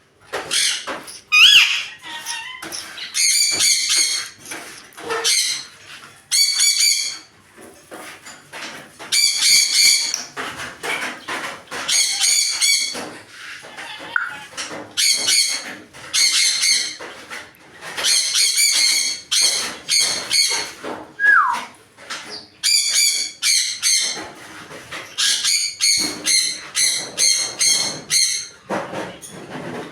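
Caged parrots squawking over and over in harsh screeches of half a second to a second each, with busy chattering from other birds beneath. A single falling whistle comes about two-thirds of the way through.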